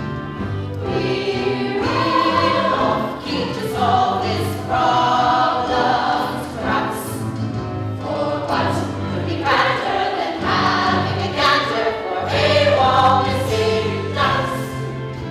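Stage musical ensemble singing together over an instrumental accompaniment with a steady bass line.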